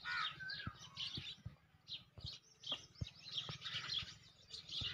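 Small birds chirping and twittering in quick, short, repeated calls, with a brief warbling call about half a second in.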